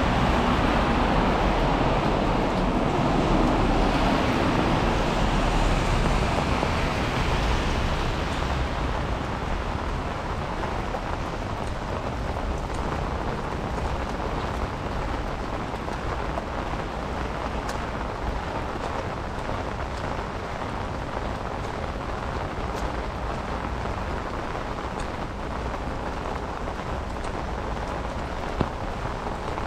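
Steady rain falling, with a vehicle's tyres hissing on the wet road in the first several seconds and fading away about eight seconds in, leaving the even patter of rain with faint drip ticks. A single sharp click sounds near the end.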